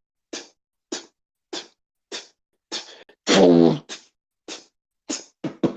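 Solo vocal beatboxing: a steady beat of short, sharp mouth-percussion hits about every 0.6 seconds. A louder pitched vocal note breaks in about three seconds in, and a quick flurry of hits comes near the end.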